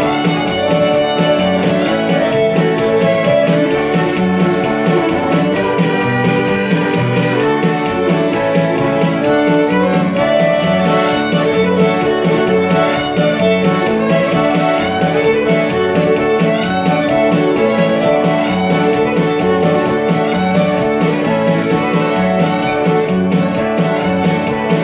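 Polka played live by a small band: a fiddle carries the tune over accordion and electric guitar, at a steady bouncing beat.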